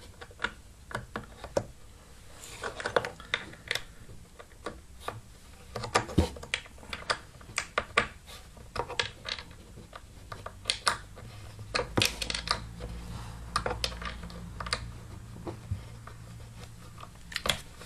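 Allen key clicking and scraping against a screw head and its metal bracket as the screw is tightened into a wooden chair frame: irregular small metallic clicks and taps.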